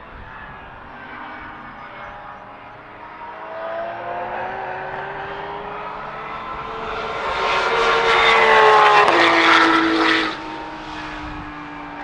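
Porsche 911 Supercup race car's flat-six engine at racing speed, rising in pitch and growing louder as it approaches. It is loudest about eight to ten seconds in, then drops off suddenly to a lower, falling pitch as it passes by.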